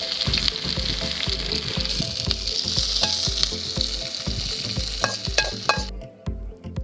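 Chopped onion, chilli and garlic sizzling in hot oil in a pan, being tempered for a curry, with a few sharp clinks of stirring near the end. The sizzle cuts off suddenly about six seconds in.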